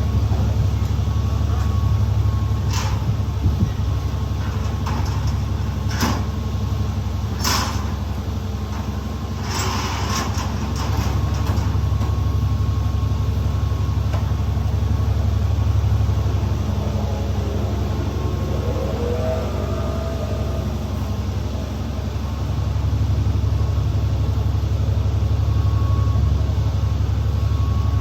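School bus under way, heard from inside: a steady low engine and road rumble that swells and eases, with the body giving a few sharp rattles and clunks in the first dozen seconds and a faint squeak about two-thirds of the way through.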